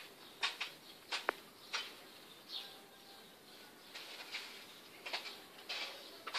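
Plastic weaving strips rustling and scraping against each other as they are slid and interlaced by hand, in short irregular crackles.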